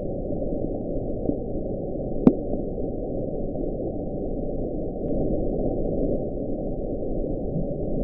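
NOAA hydrophone recording of the 1997 'Bloop', played sixteen times faster: a muffled, low rushing noise with a short sharp chirp rising in pitch about two seconds in, and a few faint upward sweeps. NOAA attributes the Bloop to an icequake, ice cracking and breaking off Antarctic glaciers.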